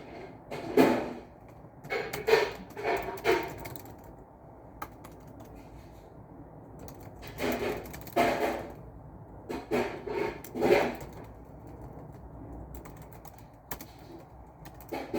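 A person coughing in short fits of two to four coughs at a time, several fits over the stretch, with a few single keyboard clicks between them.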